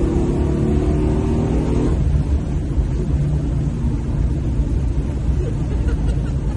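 Dodge Coronet's 6.1-litre Gen 3 Hemi V8 pulling with a steady engine note for about two seconds, then easing off to a low rumble as the car rolls on.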